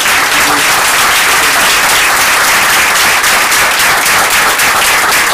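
An audience applauding: many hands clapping together in a loud, steady round.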